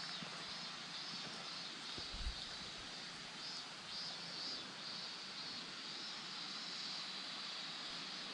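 Faint, steady outdoor background noise: an even hiss with a high-pitched drone on top that swells and fades, and a single low thump a little after two seconds in.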